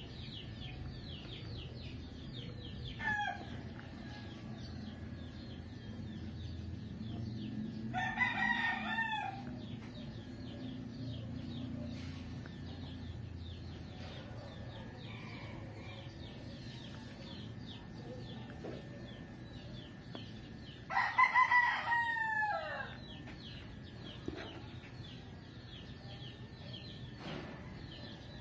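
A rooster crowing twice, about eight seconds in and again, louder, about twenty-one seconds in, with a shorter call about three seconds in. Constant quick chirping of small birds and a low steady background noise run underneath.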